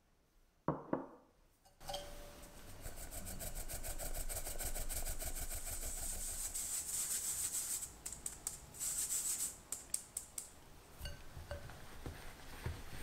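Powdered sugar being sifted through a fine metal mesh sieve, the sieve tapped by hand in a quick steady rhythm that makes a soft rasping. The rasping starts about two seconds in and ends in a few shaken bursts. Near the end a wire whisk starts stirring the sugar and butter in a glass bowl with light scattered clicks.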